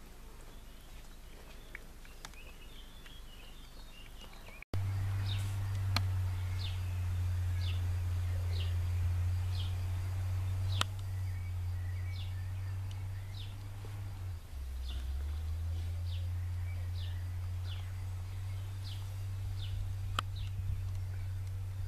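A small bird calls in short, high, falling chirps, roughly one every half second to a second. Under it a steady low hum comes in suddenly about five seconds in, is the loudest sound, and drops slightly in pitch about halfway through.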